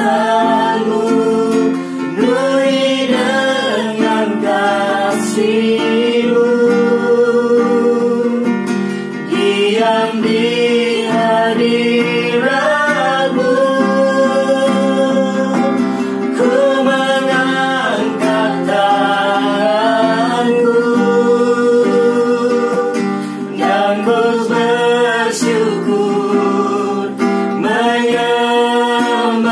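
A small group singing an Indonesian worship song together, accompanied by an acoustic guitar.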